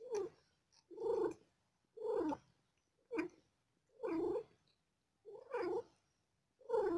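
Cat crying in short, repeated calls, about one a second, seven in all.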